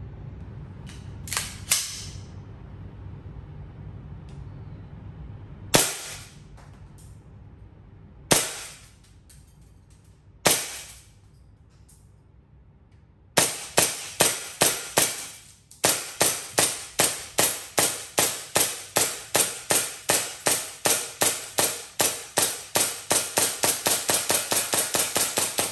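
SMC9 gas blowback BB gun firing. First two quick shots, then three single shots a few seconds apart, then a long rapid string of sharp cracks at about four to five shots a second.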